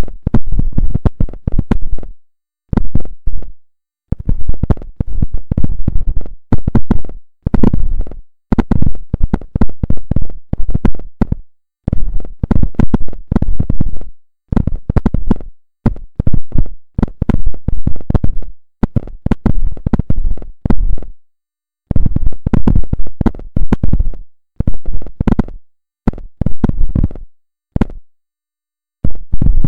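The strange signal from a refrigerator: a loud, crackling buzz switched on and off in irregular short and long bursts with brief gaps between, which sounds like Morse code.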